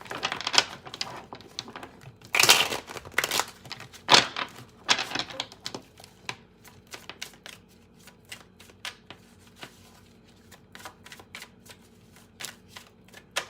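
Tarot cards being shuffled and handled. There are a few loud swishes in the first half, then a long run of quick, irregular card clicks.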